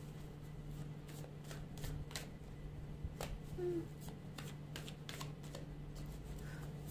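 A deck of tarot cards being shuffled by hand: soft, irregular card clicks and slides, over a steady low hum.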